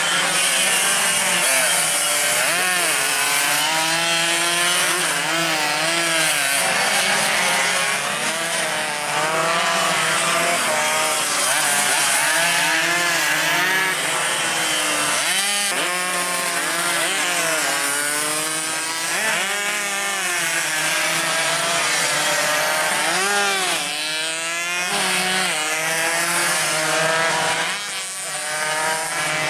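Several two-stroke Yamaha RX-King race motorcycles running at once, their buzzing engines revving up and falling back over and over, each at its own pitch.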